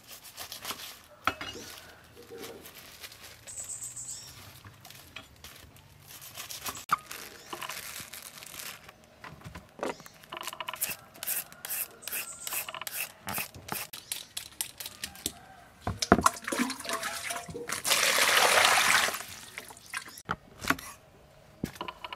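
Food preparation on a wooden chopping board: a kitchen knife cutting and a julienne peeler shredding a carrot, heard as repeated short scraping strokes and knocks on the board. Near the end comes one louder rasp of about a second and a half.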